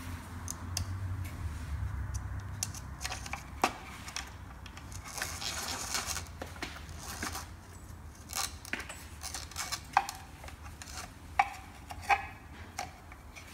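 Scattered light clicks and taps of hard plastic as an LED halo ring is handled and fitted into an opened headlight housing, with a short scraping rub about halfway through.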